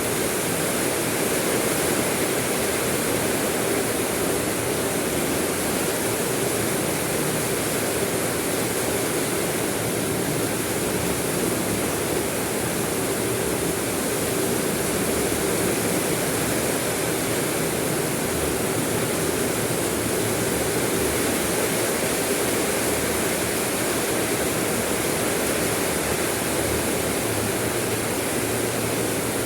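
Steady rain falling, an even, unbroken hiss with no single drops or breaks standing out.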